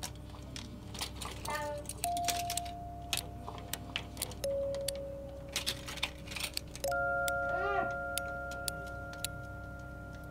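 Kitchen utensils clicking and clinking against the metal hooks of a hanging rail as they are lifted off, over soft background music with long held notes.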